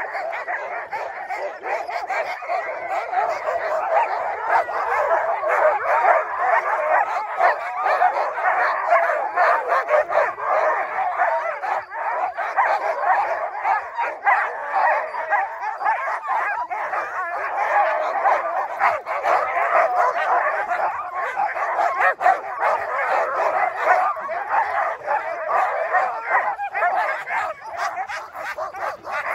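A team of harnessed sled dogs barking, yipping and howling all at once in a continuous din without a break: the excited clamour of huskies hooked to the gangline and waiting to run.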